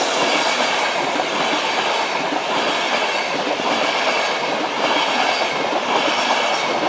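Class 91 electric train passing by with a steady rush of wheels on rail.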